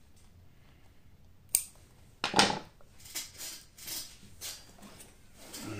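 Small metal scissors snip the end of the cord once, trimming it after the finishing knot. About a second later comes the loudest sound, a short knock as the scissors are set down on the wooden table. Several soft rustles of the pouch and cord being handled follow.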